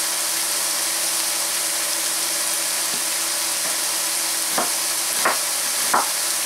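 Asparagus and green onions sizzling steadily as they fry in butter and oil in a stainless steel pan. From about four and a half seconds in, a chef's knife cuts three times through an onion onto a wooden cutting board.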